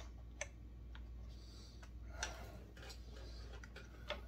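Faint scattered clicks and light scraping as needle-nose pliers work a fuel hose up through a hole in a chainsaw's plastic housing.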